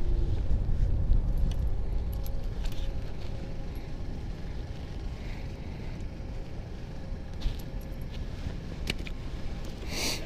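A low rumble runs under scattered small clicks and rustles as gloved hands unhook a small perch and handle the fishing rod. A brief rustle comes near the end.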